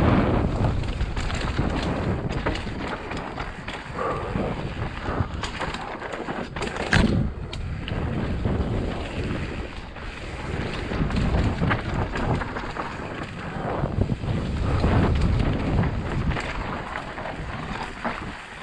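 Mountain bike descending a dirt forest trail at speed, heard from a helmet camera: wind rushing over the microphone, tyres rolling on dirt and gravel, and the bike rattling and knocking over roots and stones, with one sharp knock about seven seconds in.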